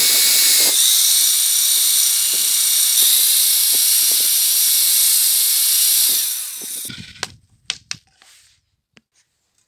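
Cordless drill spinning a beech handle blank while a rasp and then sandpaper are pressed against the turning wood: a steady motor whine under a loud hiss of abrasive on wood. The drill winds down about six seconds in, followed by a few light clicks.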